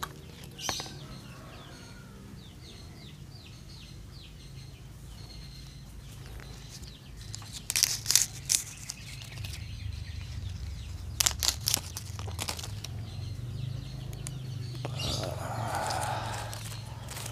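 Hands working a small bonsai in a plastic grow bag: two clusters of sharp clicks from the branches being cut or snapped, then a rustle of the plastic bag near the end. Birds chirp faintly in the first few seconds.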